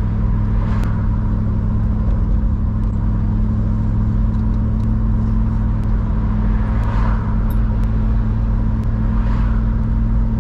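Triumph Stag's 3.0-litre V8 running steadily at cruising speed, heard from inside the cabin along with road noise. There are brief swells of rushing noise about a second in, around seven seconds and again near the end.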